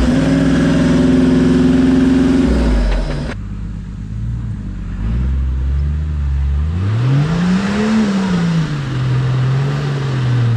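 A four-wheel-drive's engine running under load as it crawls up a rutted dirt track, holding steady revs. After about three seconds it cuts to another engine that revs up and back down once around the middle, then settles to a steady run.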